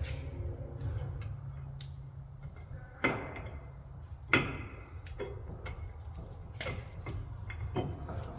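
Metal clicks and clinks of a disc brake caliper and pads being handled on the car, as the fallen pad is refitted, with two sharper metallic knocks about three and four and a half seconds in.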